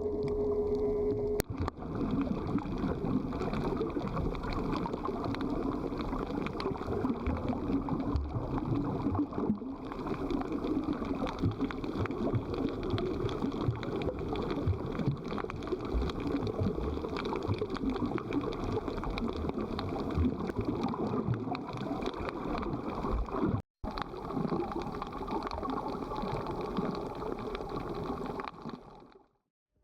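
Muffled, gurgling water noise as picked up by a camera held under the sea while snorkelling, with small clicks throughout. It cuts out briefly about three-quarters of the way through and fades away at the end.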